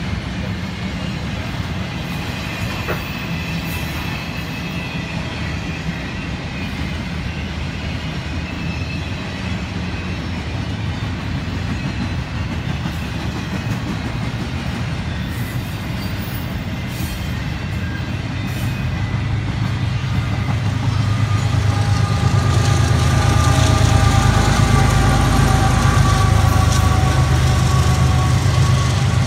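CSX intermodal freight train rolling past, a steady rumble of container cars on the rails. From about twenty seconds in it grows louder as a CSX diesel locomotive in the train passes, adding a deeper engine rumble and a steady pitched hum.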